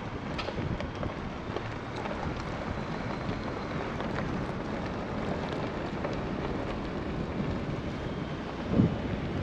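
Ford F-150 pickup driving slowly on a dirt forest road: steady tyre and road noise with wind on the microphone and a few light ticks.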